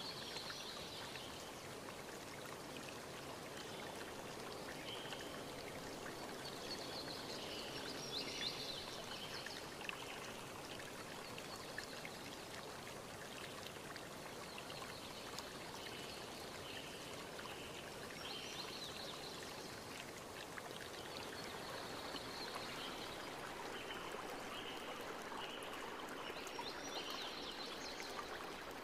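Steady rushing water, with short high chirps recurring over it throughout.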